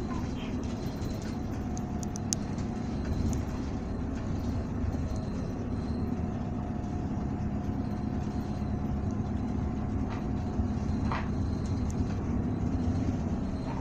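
Running sound heard from inside the cabin of a 2019 Isuzu Erga city bus (2DG-LV290N2), a steady low drone of its four-cylinder diesel engine and the road noise while under way.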